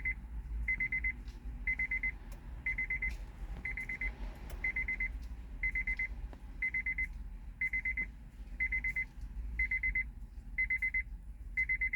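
Electronic warning beeper sounding in short groups of rapid high-pitched beeps, about one group a second, repeating steadily.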